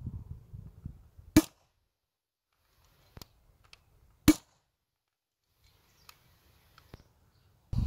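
Trigger of a T4E HDS 68 CO2 double-barrel shotgun pulled twice, each pull ending in one sharp snap. Fainter clicks come between and after the snaps as the trigger resets.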